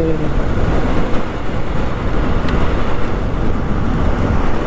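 Steady wind buffeting the camera microphone, with road and vehicle noise underneath, while travelling at speed on a highway.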